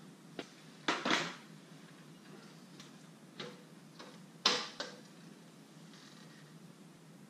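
Scattered short clicks and knocks, about seven in all, the loudest a little after one second and about four and a half seconds in, from a cover being handled on the side of a geothermal heat pump cabinet.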